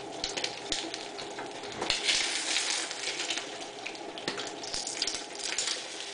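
Beaten eggs sizzling in hot oil in an enamel frying pan, with a few short scrapes and taps of a spatula against the pan as the eggs are pushed around. The sizzle swells about two seconds in.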